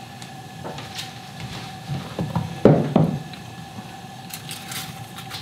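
Sweet potatoes being handled and set onto a baking tray in an open oven: a few knocks and clunks, the loudest two close together about three seconds in, then lighter ticks, over a faint steady hum.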